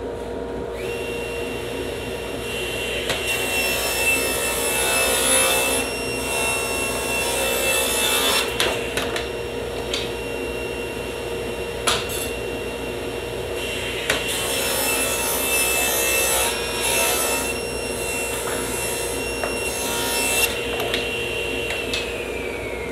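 Table saw running, ripping a board lengthwise to a 4-inch width in two long passes, with a few knocks as the wood is handled. The blade's whine falls away near the end as the saw is switched off and spins down.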